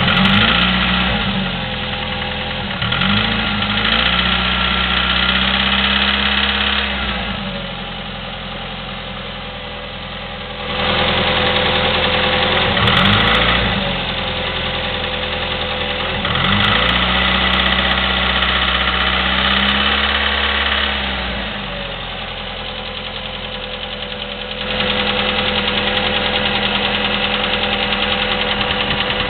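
Chevy S-10's 2.2L four-cylinder engine running through a Flowmaster 40 muffler, revved up and held several times and dropping back to idle in between. It has a valve or lifter clicking that the owner says has gone on for 45,000 miles, a common trait of this engine.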